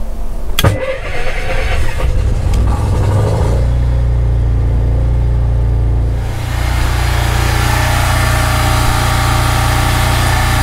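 Kohler 5E gasoline marine generator starting: a click as the starter engages, about three seconds of cranking, then the engine catches and runs steadily. The generator now stays running, its stalling fault cured by a new oil pressure switch and fuel filter.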